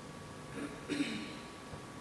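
A pause in speech: quiet room tone with a faint steady hum, broken by two brief sounds of a man's voice about half a second and a second in.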